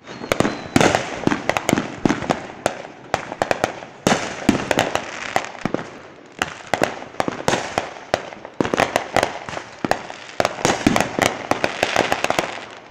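Fireworks going off: a dense run of sharp pops and crackles over a hissing spray of sparks, surging loudly afresh several times.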